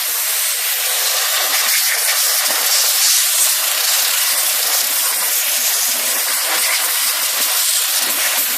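Compressed air hissing steadily from a blow nozzle, blowing freshly applied oil and loosened dirt through a typewriter's keyboard.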